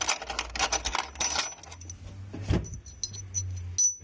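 Small metal parts clinking and rattling in quick clicks, with a single knock about two and a half seconds in and a few ringing metallic pings after it; the sound cuts off suddenly near the end.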